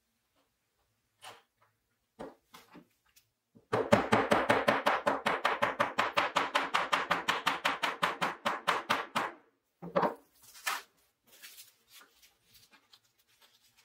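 Rapid, even taps of a plastic-faced soft mallet driving a new wooden handle down onto a hand drill's metal shaft, about seven a second for roughly six seconds, starting a few seconds in. A couple of separate knocks follow.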